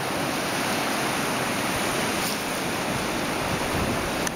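Ocean surf washing onto a beach: a steady rushing noise.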